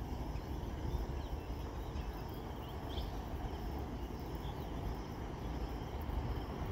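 Rural outdoor ambience: insects buzzing steadily with a few short bird chirps, over a low steady rumble.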